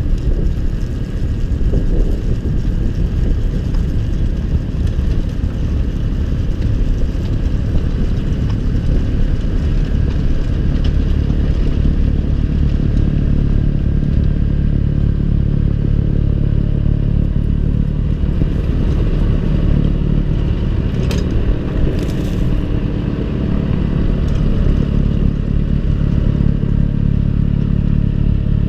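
John Deere 6110R tractor's diesel engine running steadily under load while a snow blower works, with a brief higher rattle about three-quarters of the way through.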